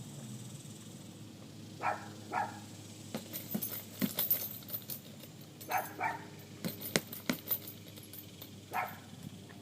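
A dog barking in short pairs, a few times, with light metallic clicking and jingling in between.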